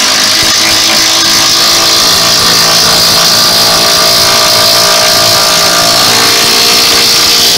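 Milwaukee cordless impact driver running steadily, driving a Sammy threaded-rod lag anchor into a wooden joist overhead.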